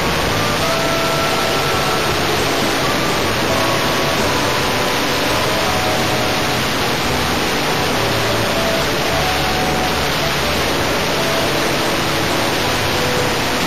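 Steady, loud rushing noise from a small camera riding on a model plane in flight: wind over the microphone mixed with its O.S. Max .25 LA nitro glow engine running.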